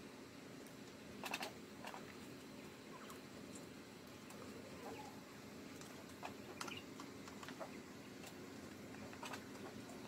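Quail pecking at mashed food in a pipe feeder: scattered sharp clicks a second or two apart over a steady low hum.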